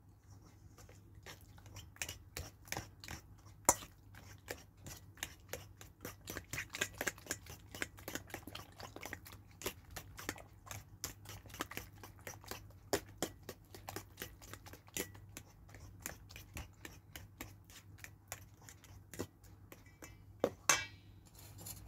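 A metal fork beating eggs into mashed banana in a stainless steel mixing bowl: quick, repeated clicks and scrapes of the fork against the bowl, several a second, with a few louder knocks.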